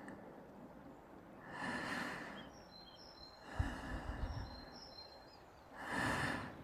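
A person breathing slowly and heavily, two long breaths about four seconds apart, with low gusts of wind buffeting the microphone between them and faint bird chirps.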